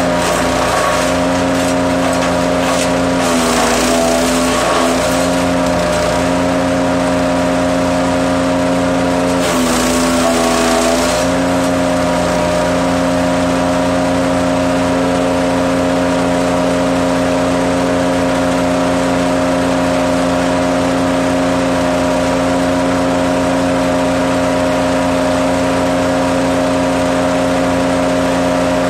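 Hecht 6642 petrol wood chipper-shredder running steadily at speed. Twice, about three seconds in and again about ten seconds in, the engine note dips briefly with a burst of hissing noise as a branch is fed in and chipped, then it recovers to its steady pitch.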